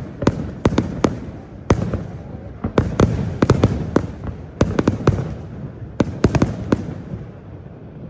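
Aerial fireworks going off: rapid sharp bangs and pops in quick clusters over a low rumble. The bangs stop about two-thirds of the way in and the rumble fades away.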